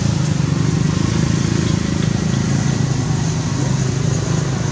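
Steady low rumble of an engine running, holding an even level without revving.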